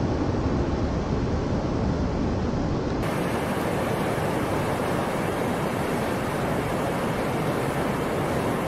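Steady rush of whitewater rapids churning around a capsized swimmer and kayak. About three seconds in, the deep rumble drops away and the rushing turns brighter and hissier.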